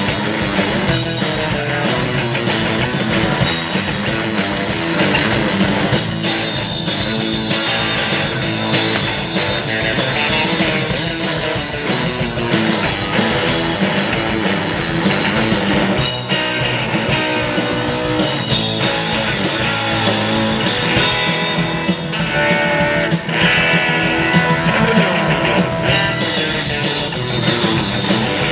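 A live rock band playing: electric guitars over a drum kit, steady and loud.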